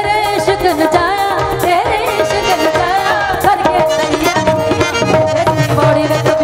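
Live Punjabi Sufi song: women singing an ornamented, wavering melody over tabla, with steady held notes underneath.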